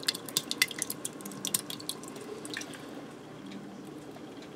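Thick crushed tomatoes pouring from a can into a metal pressure-cooker pot: a dense run of wet plops and pops in the first second and a half, thinning to scattered ones, over a faint steady hum.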